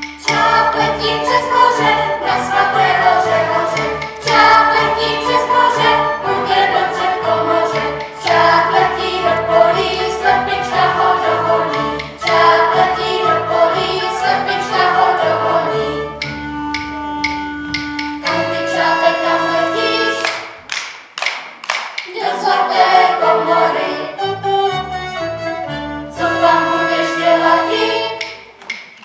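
Children singing a folk song together over instrumental accompaniment; the music breaks off briefly a little after two-thirds of the way through and then resumes.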